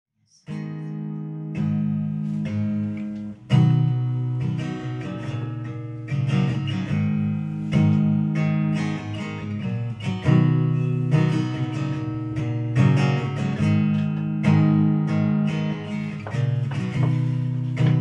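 Solo acoustic guitar playing a slow instrumental introduction: chords struck about once a second and left to ring, starting about half a second in.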